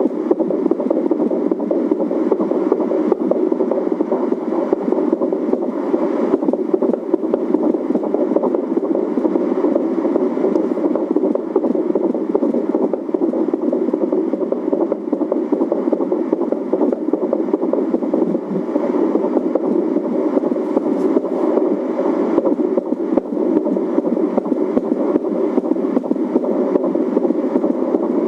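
Fetal heartbeat heard through an Angelsounds home fetal Doppler: a steady pulsing whoosh within a band of static from the device's speaker.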